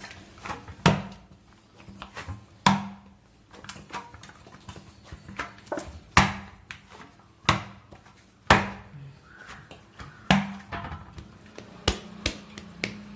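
Hands kneading a stiff bait dough in a vessel: irregular slaps and knocks, a loud one every second or two, with softer clicks between.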